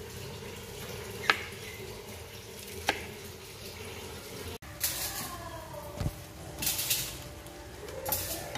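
Two sharp clinks of a metal fork against a ceramic plate over a low steady hum. After a cut come short bursts of hissing, from shrimp sizzling in butter in a pan as they are stirred.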